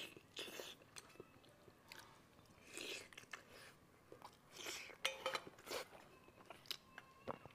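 Close-miked mouth sounds of a person chewing soft spicy pork brain (麻辣脑花) in chili oil, in short irregular bursts with small clicks between them, busiest around five seconds in.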